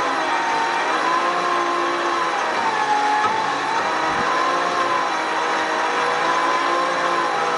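Truck-mounted winch reeling in its cable under load, dragging a small International Harvester tractor, heard as a steady mechanical whine that slowly rises and falls in pitch over a running engine.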